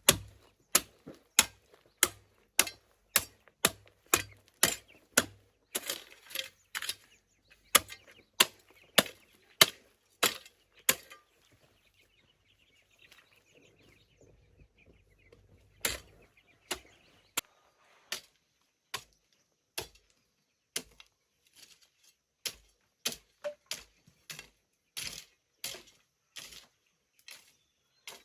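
Repeated sharp chopping strikes of a hand tool, about two a second, breaking off for a few seconds midway and then resuming more unevenly.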